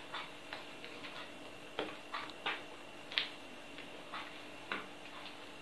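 A bare hand mixing soft, wet cozonac (brioche) dough into a well of flour, making irregular sticky squelches and smacks, about a dozen short ones, the loudest a little past three seconds in. A faint steady hum lies underneath.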